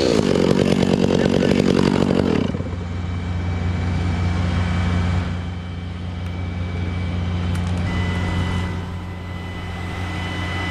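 Stihl chainsaw at full throttle cutting through a conifer trunk, which drops away about two and a half seconds in. A steady engine idle runs on underneath, and a faint high steady tone joins near the end.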